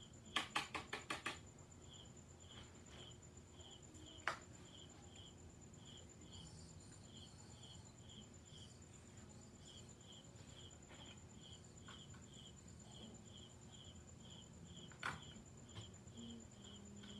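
Faint, steady chirping of a cricket, about two or three chirps a second, with a quick run of six sharp clicks about half a second in and single sharp clicks about four and fifteen seconds in from small tools and shelf hardware being handled.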